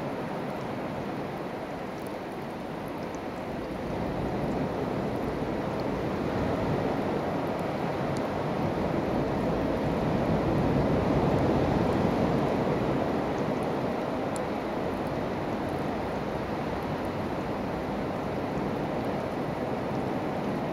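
Sea surf on the shore, a steady rushing wash that builds over the first ten seconds or so and then eases slightly.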